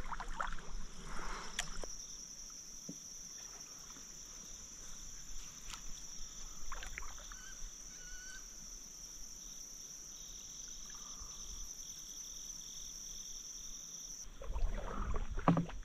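Quiet river ambience from a drifting kayak: a steady high-pitched insect chorus with faint paddle and water sounds. The insect sound cuts off abruptly near the end, giving way to a low rumble.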